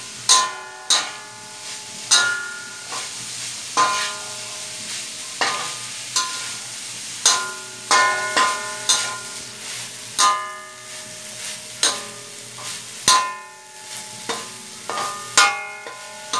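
Metal spatula scraping and knocking against a metal wok while stir-frying pork and ginger, about one stroke a second, each stroke leaving the wok ringing briefly, over a steady sizzle.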